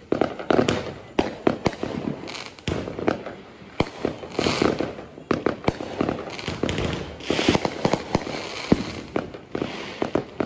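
Fireworks and firecrackers going off: many sharp bangs and pops at irregular intervals, with crackling hiss between them.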